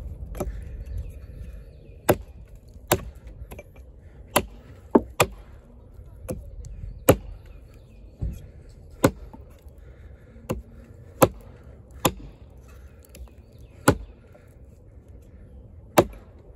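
A Kobalt 14-inch camp axe chopping a notch into a log: about a dozen sharp strikes of the steel bit biting into the wood, at an uneven pace of roughly one a second.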